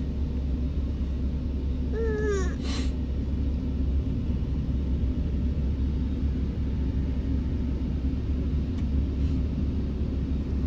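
Steady low rumble of automatic car wash machinery heard from inside the car's closed cabin. About two seconds in there is one brief vocal sound.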